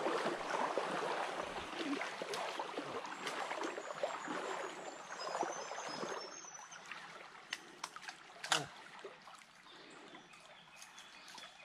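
Small forest stream running over a riffle and around fallen logs: steady burbling water that fades after about seven seconds. A sharp click about eight and a half seconds in.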